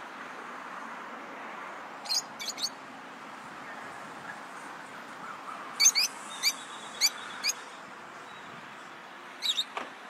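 Lovebirds giving short, sharp, high-pitched chirps in clusters: three about two seconds in, a run of about six in the middle, and a few more near the end, over a steady background hiss.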